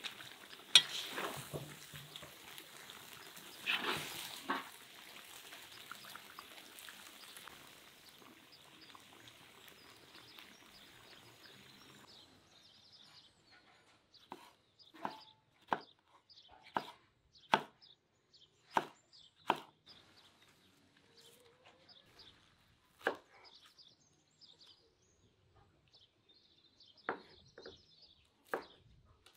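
Potato cubes tumbling into a steaming cauldron of stewing meat and tomatoes with a steady sizzling hiss, with a couple of knocks about one and four seconds in. From about twelve seconds on, a kitchen knife chops red chili peppers on a bamboo cutting board: a dozen or so sharp strikes at irregular spacing.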